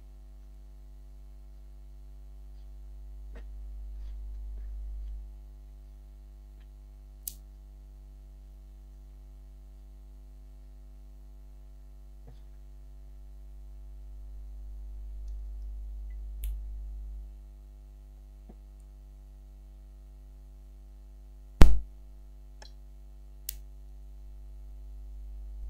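Steady electrical mains hum, with a few sharp isolated clicks scattered through it; the loudest click comes about three-quarters of the way in.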